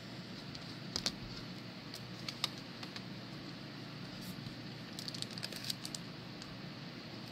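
Faint clicks and light handling noise from sports cards in plastic sleeves and holders being shuffled and set down, a few isolated ticks and then a short cluster past the middle, over a steady low background hiss.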